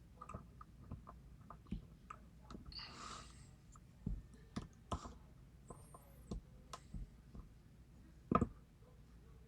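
Faint, scattered metallic clicks and taps from a Schlage KIK lock and lock-picking tools being handled, with a brief rustle about three seconds in and a sharper click near the end.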